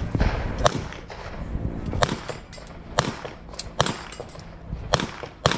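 Handgun shots, about seven, fired at irregular intervals of up to about a second and a half, over a low rumble of wind on the microphone.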